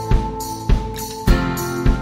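Background music: a song with a steady drum beat, a kick drum hitting about every 0.6 seconds under held instrumental chords.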